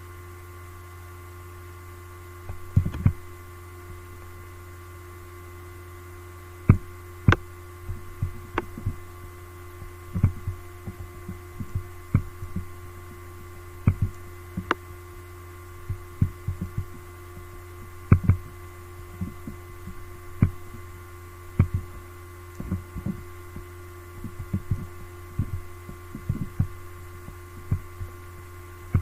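Steady electrical hum with a few faint steady tones, overlaid by irregular sharp clicks and soft knocks.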